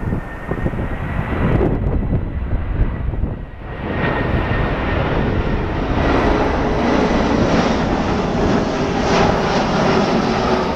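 Airbus A340 four-engine jet airliner on landing approach flying low overhead, its engines' steady roar with a faint high whine at first. About four seconds in the sound grows brighter and louder as the jet passes over and stays that way.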